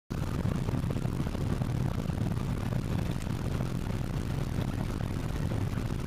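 Steady low rumble of a car driving, heard from inside the cabin: engine and tyre-on-road noise.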